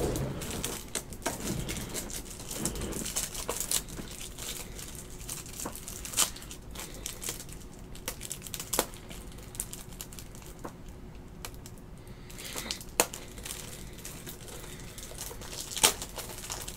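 Trading-card packs being opened: wrappers crinkling and tearing, with scattered light clicks and taps as the cards are handled, all fairly quiet.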